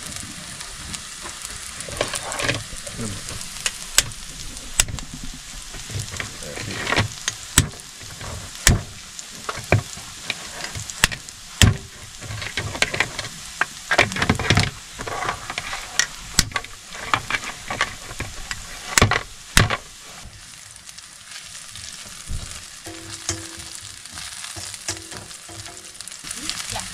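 Chili and garlic sizzling in hot oil in a frying pan, with sharp cracks at irregular intervals as spider crab claws and legs are cracked by hand. A utensil stirs and scrapes the pan near the end.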